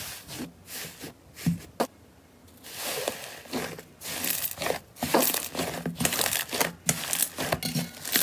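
Thick slime being pressed and squeezed by hand, giving irregular crackling, crinkling pops. They are sparse at first, then come denser and louder from about four seconds in.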